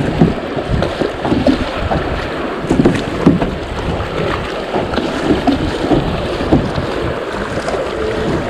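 Creek water rushing through riffles around a kayak, with the splash and swish of paddle strokes and wind rumbling on the microphone.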